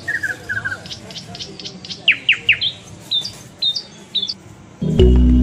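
Birds chirping: short, high repeated chirps and, about two seconds in, three quick downward-sliding whistles. Music with a heavy bass starts near the end.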